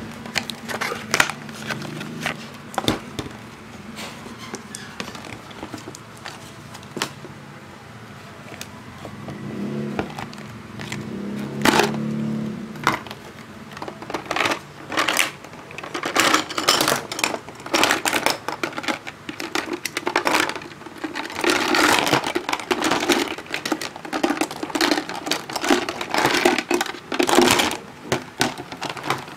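Plastic Play-Doh tools and lidded cans clattering and knocking together as they are handled and tipped out onto a table, with packaging rustling. The clatter comes in irregular clicks, sparse at first and much busier from about halfway on.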